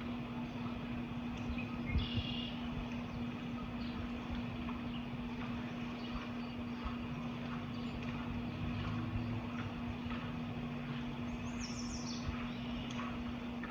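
Birds chirping sporadically, with a short chirp about two seconds in and a quick high descending call near the end, over a steady low rumble and a constant hum.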